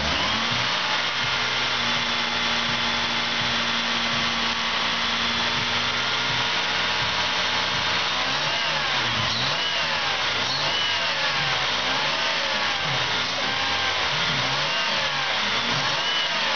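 Jeep Grand Cherokee 4.0-litre inline-six engine idling steadily. From about halfway in it is blipped on the throttle about once a second, its pitch rising and falling with each rev.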